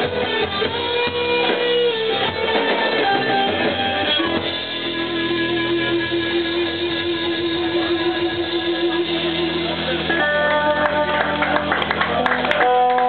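Live rock band playing, led by electric guitar over drums. A single note is held for several seconds from about four seconds in, and near ten seconds the band moves to a new chord with sharper strokes.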